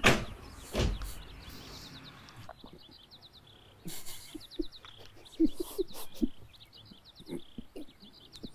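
Two dull knocks at the start, then quiet, repeated runs of quick high-pitched chirps, several chirps to a run, like birdsong, with a few soft low blips among them.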